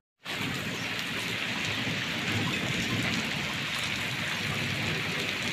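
Heavy rain pouring steadily, an even hiss that sets in after a split-second dropout at the start.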